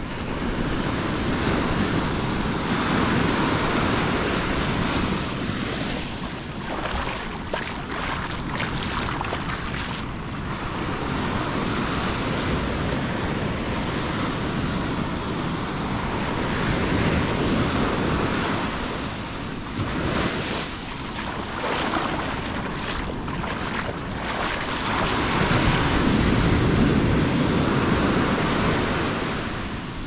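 Atlantic surf breaking and washing up the sand in slow surges that rise and ease, the loudest near the end.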